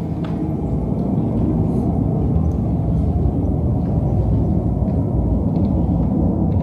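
Low, dense electronic drone from an art installation's soundscape, steady and with no beat, its sound sitting mostly in the lows.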